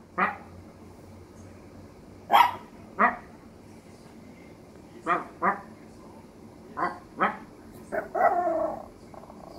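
Maltese puppy barking in short, sharp yaps, mostly in pairs a few seconds apart, then a longer wavering howl near the end.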